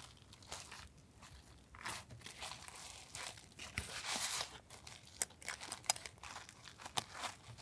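Packaging crinkling and rustling as it is handled, with scattered small clicks and taps.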